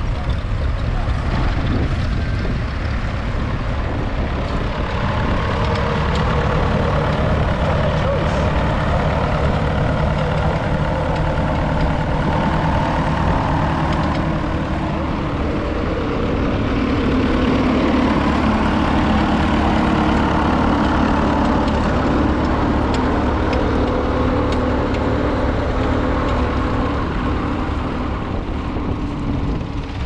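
Vintage Fordson tractor engine running steadily under load as it pulls a plough, with a faint mix of voices.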